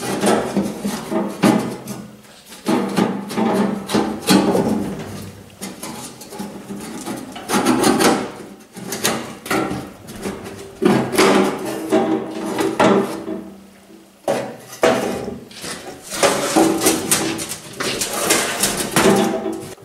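Background music, with knocks and clatter mixed in.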